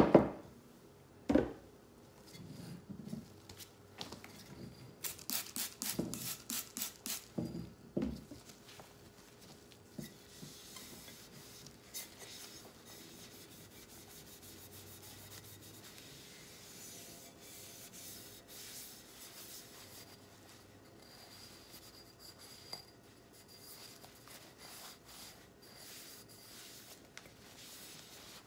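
Cloth wiping a lampshade by hand, a soft uneven rubbing. Before the wiping there is a knock at the start, another about a second later, and a quick run of short sharp strokes about five to eight seconds in as the shade is handled.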